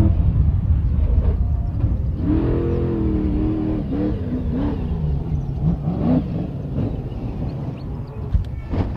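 Off-road race truck's engine running hard over a steady low rumble, its pitch rising and falling as the throttle changes. A couple of short knocks near the end as the truck tips onto its side.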